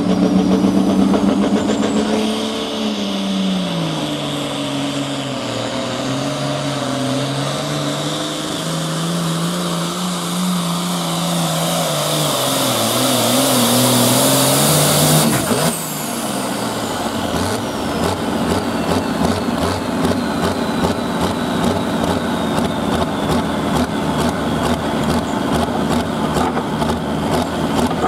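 The 466-cubic-inch diesel engine of the Oliver 2150 hot farm pulling tractor runs flat out under the load of the sled. Its pitch sags and recovers, with a high whistle rising over it. About halfway through the throttle is cut suddenly, and the engine drops to an evenly pulsing idle.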